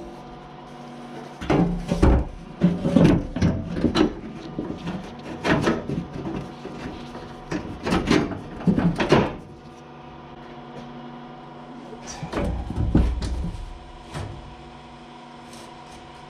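Hood panel of a Kubota L2350 tractor being set back into place: a run of clunks, knocks and scrapes of the panel against the frame for several seconds, then a few more knocks about twelve seconds in, over a steady hum.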